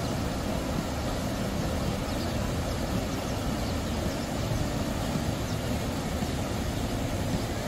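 Steady rush of river water pouring over a low weir and churning white below it, a dense, even noise.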